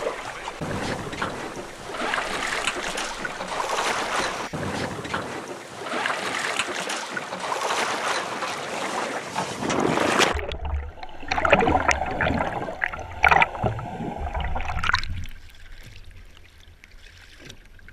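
Wind buffeting the camera microphone over sea water sloshing against a small boat's hull. About ten seconds in it changes abruptly to a low rumble with a few knocks, then settles to quieter water lapping at the hull for the last few seconds.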